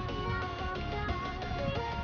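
Background music with a melody.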